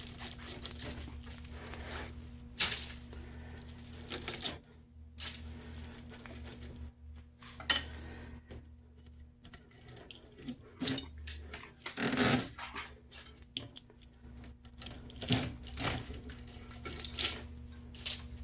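Cable cutters snipping through the copper windings of an electric motor's stator: irregular sharp snips and metallic clinks, one every second or so, some much louder than others.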